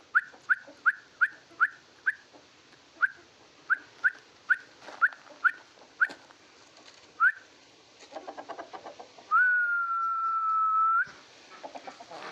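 Aseel chicks peeping in short rising chirps that repeat irregularly for about seven seconds. Then comes soft clucking, and near the end one long steady whistle lasting under two seconds.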